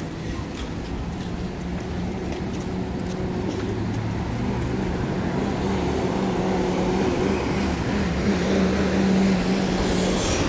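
Street traffic with a motor vehicle's engine hum that grows gradually louder as it draws near, loudest near the end.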